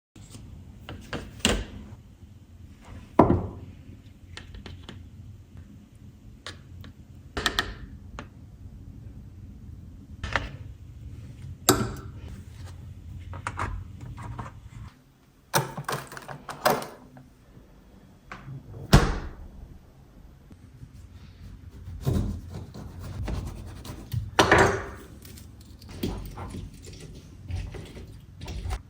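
Household handling sounds: irregular knocks, clunks and short scuffs of objects being set down and moved, like doors or drawers opening and closing, over a low steady room hum.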